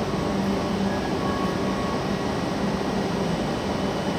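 Steady hum of a stationary W7 series Shinkansen's air-conditioning and equipment blowers at the platform, with a low steady tone running through it.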